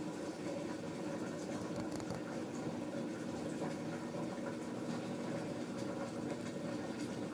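Steady background hum and hiss, with a few faint clicks.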